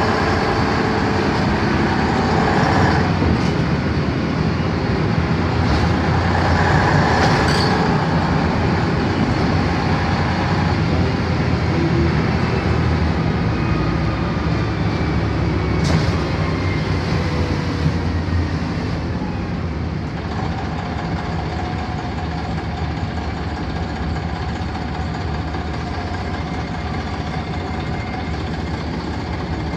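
Inside a LiAZ-5256 city bus under way: its YaMZ-236 V6 diesel and Voith automatic gearbox running with a steady drone, with a few short knocks and rattles. About 20 s in the noise drops to a quieter steady hum.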